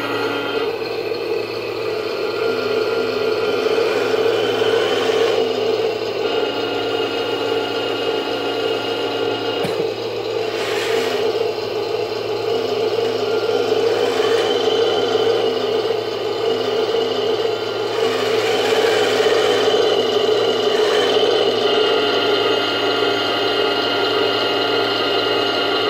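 1/16-scale RC Sherman tank running and driving on a hard floor: a steady mechanical hum with a repeating pulsed tone, and gear and track whirring and rattling that swell several times as it moves.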